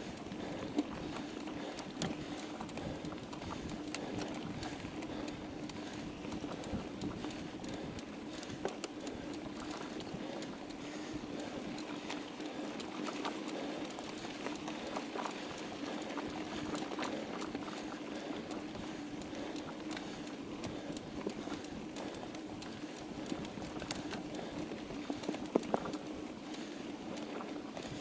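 Mountain bike rolling fast over a dirt track: a steady hum from the tyres and drivetrain with frequent small clicks and rattles over bumps.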